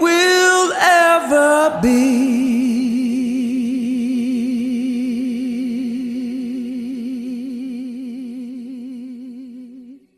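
End of a song: a voice sings a last short phrase, then holds one long note with vibrato that slowly fades out over about eight seconds and stops just before the end.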